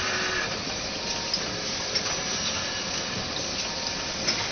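Inline CD/DVD replication machine running: a steady rushing mechanical noise with a few sharp clicks, about a second and two seconds in and again near the end.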